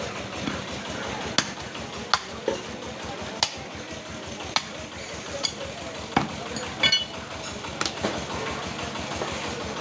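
Heavy butcher's cleaver chopping through a beef hind leg on a round wooden chopping block: about seven sharp, irregularly spaced chops over the first eight seconds, one near the end with a brief metallic ring. A steady hum of street traffic runs underneath.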